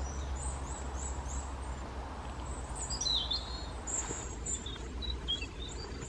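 Small woodland birds calling: a string of short, high chirps, with a more varied call about three seconds in, over a low steady rumble.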